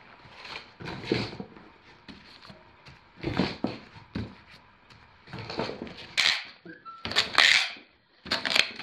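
Small paperback booklets being gathered up and knocked together in stacks on a plastic-covered table, a series of soft thuds and slaps. From about six seconds in, a cardboard box is handled, with louder scraping and rustling of cardboard.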